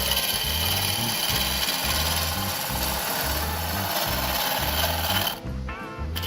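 A gouge cutting a spinning cherry burl and epoxy blank on a wood lathe, a steady scraping hiss as the blank is turned down to a cylinder. The cut stops briefly near the end, with a beat of background music underneath.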